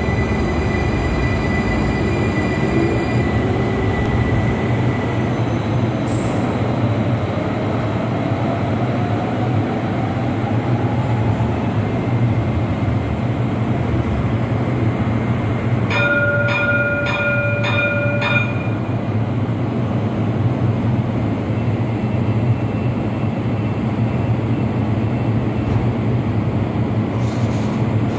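Alicante light-rail trams running through an underground station: a steady rail rumble, with a faint rising motor whine over the first several seconds as a tram gets under way. Around the middle, a rapid series of beeps lasts about two seconds.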